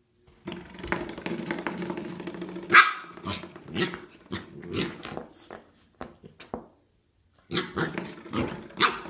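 A spring door stop is flicked and twangs with a steady buzz for about two seconds. Then a corgi puppy barks and growls at it in a run of short, loud bursts, with a brief pause before more near the end.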